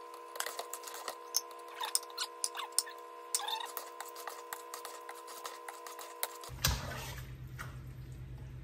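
Metal spoon stirring seasoned ground meat in a stainless steel pot, with repeated clicks and scrapes against the pot, busiest in the first few seconds. A steady hum runs underneath and changes to a lower hum after a short rush of noise about six and a half seconds in.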